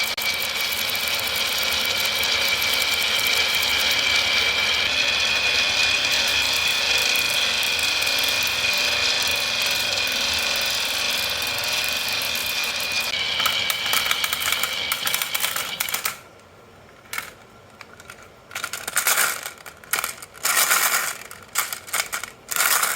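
Many marbles rolling and clattering down a marble run track, a dense continuous rattle with a steady high ring. It cuts off suddenly after about sixteen seconds, followed by scattered sharp clacks of single marbles knocking near the end.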